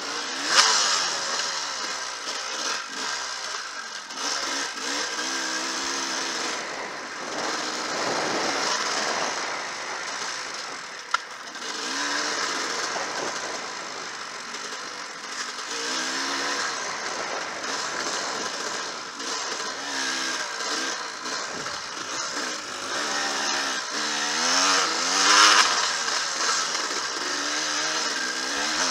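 Enduro dirt bike engine being ridden hard, its revs rising and falling continuously with the throttle. A single sharp knock comes about eleven seconds in.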